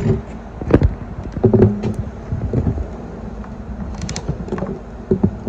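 Bubba Blade steel pliers clicking and knocking against a plastic drum bung cap as they are fitted into its cross slot to tighten the cap down, a few scattered, irregular clicks.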